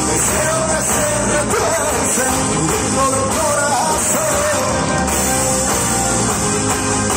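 Live rock band playing through a PA, heard from the crowd: electric guitars with a gliding melodic lead line over bass, keyboards and drums, steady and loud.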